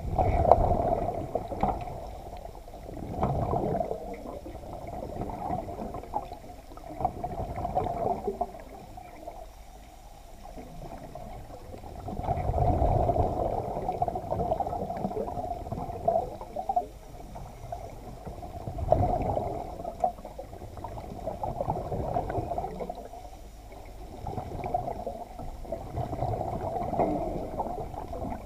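Underwater sound picked up by a submerged camera in its waterproof housing: muffled surges of water and bubbling that swell every few seconds.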